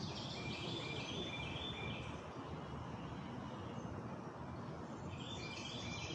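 A songbird singing a quick run of stepped notes that fall in pitch, heard twice: through the first two seconds and again about five seconds in, over a steady low background noise.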